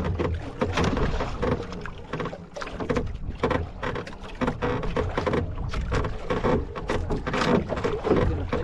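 Water slapping and sloshing irregularly against the hull of a small boat at sea, with wind on the microphone.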